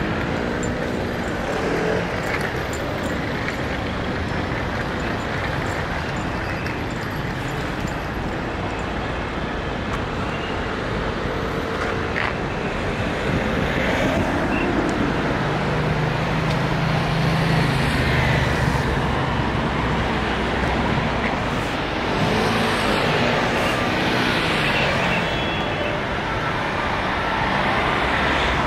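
Steady city road traffic noise, with a vehicle engine's low hum swelling and fading in the middle.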